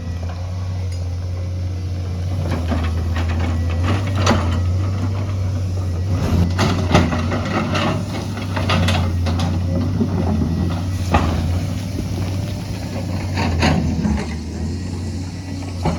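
The diesel engine of heavy earthmoving equipment running steadily, with repeated sharp clanks and knocks scattered through the middle of the stretch.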